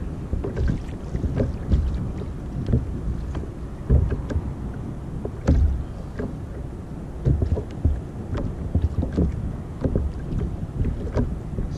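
Wind buffeting the microphone with a low rumble, while small waves slap and knock irregularly against the plastic hull of a sit-on-top kayak, a few of the slaps sharper and louder.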